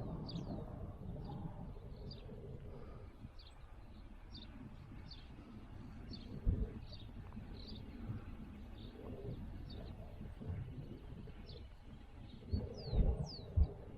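Small birds chirping steadily, short high notes a few times a second. A few low thumps come about halfway through and again near the end.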